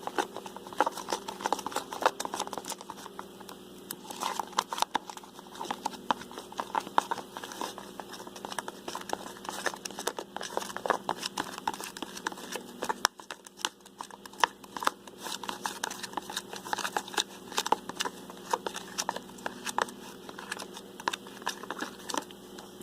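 Plastic spoon stirring glue and shaving cream in a bowl: wet squishing and crackling with irregular small clicks of the spoon against the bowl.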